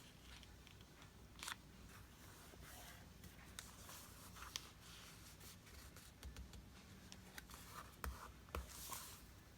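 Near silence: room tone with faint scattered rustles and light clicks, a few small knocks about eight to nine seconds in.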